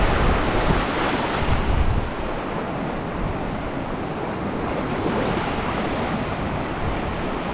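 Ocean surf washing and breaking in the shallows around the waders' legs, with wind buffeting the microphone. The rush is loudest for the first two seconds, then settles to a steady wash.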